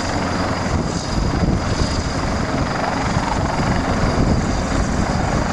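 Helicopter hovering, a steady rotor and engine drone.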